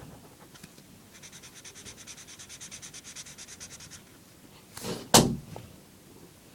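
Rapid back-and-forth scribbling strokes on paper, about nine a second, for about three seconds. Then two sharp knocks close together about five seconds in, the second one louder.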